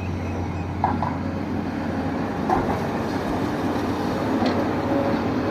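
Excavator engine running steadily under a heavy low rumble, with a few short knocks about a second in and again halfway through.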